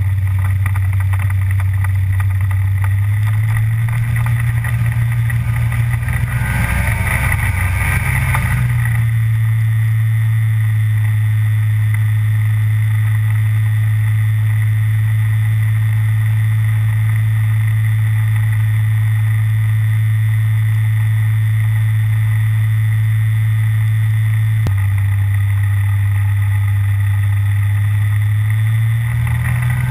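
The two-stroke Rotax engine of an Aventura amphibious ultralight running loud and steady, heard close from a camera mounted on the aircraft, as it taxis and accelerates across water. The engine note rises about three seconds in, falls back about nine seconds in, with a rushing of wind and water for a few seconds before that, and rises again near the end.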